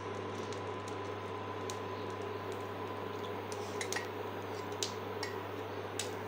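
Oil poured from a ceramic cup into a heating non-stick kadai: a few light clicks and clinks from the pan and cup over a steady electric hum.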